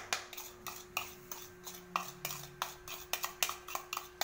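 Metal spoon clinking and scraping against a bowl in irregular sharp taps, about three a second, as sugar is spooned out onto sliced saba bananas.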